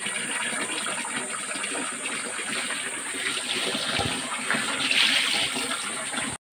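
Water running and splashing onto a wet concrete floor as someone washes their face by hand at a water container. It is a steady rush that swells about five seconds in.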